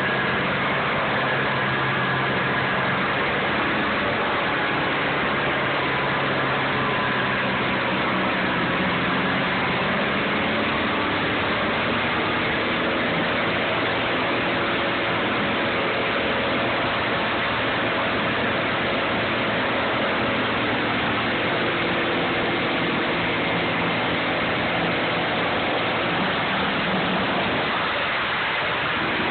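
Morbark wood chipper running: a steady, loud engine drone under a dense rushing noise, the engine note dipping slightly and recovering around the middle.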